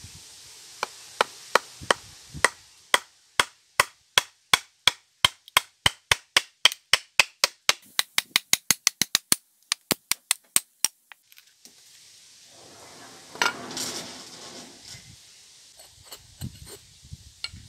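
A wooden mallet knocks a steel chisel into a log in a long run of sharp, regular strikes, about three a second and quickening for a while partway through, splitting a slab off the wood. A short rough crackle follows about two seconds after the knocking stops.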